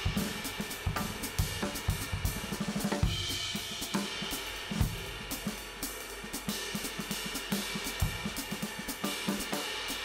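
Drum-led background music: a busy drum kit with hi-hat and cymbal hits over snare and bass drum beats. There is a quick run of hits just before three seconds in, and a sparser stretch in the middle.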